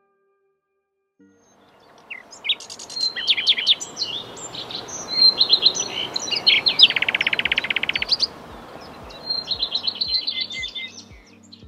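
Several wild songbirds singing and calling over a steady outdoor hiss, fading in about a second in, with a fast trill about seven seconds in. A low, regular beat of music comes in near the end.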